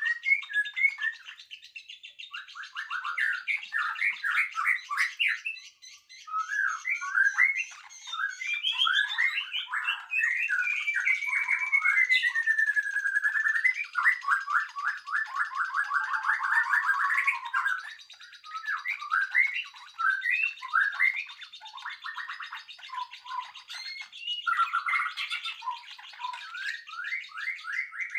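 Songbirds singing continuously in a varied run of quick chirps, trills and whistles. A long, slowly falling whistle comes about twelve seconds in, followed by a fast, rattling trill.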